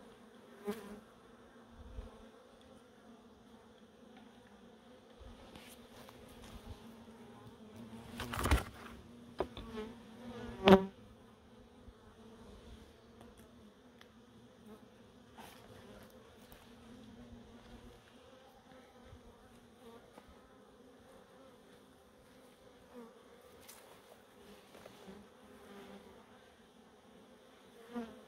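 Honeybees buzzing steadily around open hives, a continuous hum. Two louder knocks come about a third of the way through.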